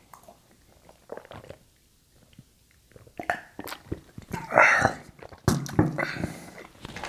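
A man drinking from a glass mug: gulps and small mouth clicks, then a short vocal sound about halfway through. About five and a half seconds in there is a sharp knock as the glass mug is set down on the tray, followed by soft eating sounds.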